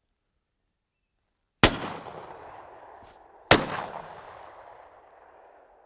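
Two shotgun shots about two seconds apart, each rolling away in a long fading echo.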